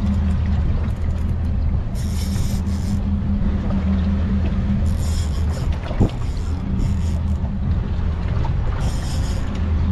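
Boat engine running steadily with a low hum, with several short bursts of high hiss and a single knock about six seconds in.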